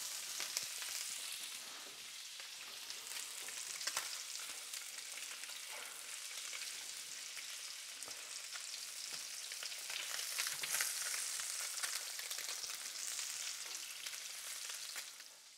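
Sea bass fillets frying in butter and oil in a hot pan: a steady sizzle with fine crackling of spitting fat, dropping away just before the end.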